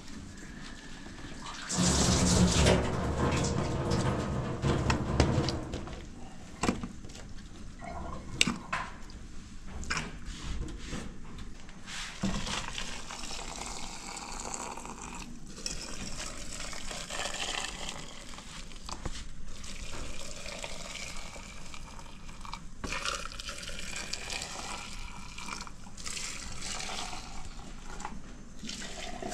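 Water running from a tap, loudest from about two to six seconds in, then continuing lower, with a few sharp clinks of dishes.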